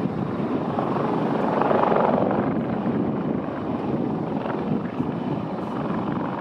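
Cessna Citation CJ1 business jet's twin turbofan engines heard at a distance as it flies away: a steady rushing noise that swells about two seconds in, then eases off a little.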